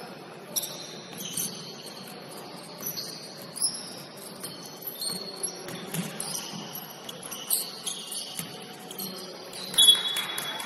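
Basketball shoes squeaking on the court floor during play: many short, high-pitched chirps at irregular intervals, the loudest near the end, with a few sharp knocks.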